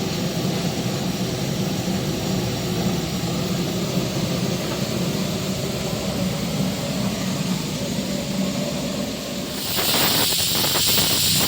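A sterilising machine for eating and drinking utensils runs with a steady low hum. About ten seconds in, a loud hiss starts, with crackling ticks.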